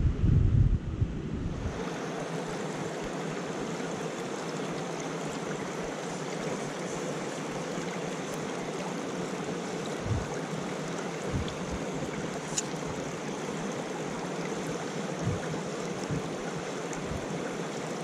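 Small moorland stream running over rocks and a little cascade, a steady rush of water. Wind buffets the microphone for the first couple of seconds.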